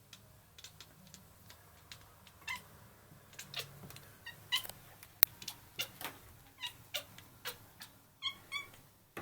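A cat chattering at birds: a quiet, irregular run of short clicks and brief chirps, with a couple of clearer chirps near the end. It is the excited chatter of a cat watching prey it cannot reach.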